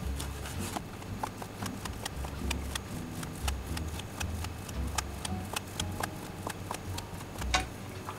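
Chef's knife chopping stacked ham slices into thin strips on a plastic cutting board: a quick, irregular run of knocks as the blade strikes the board.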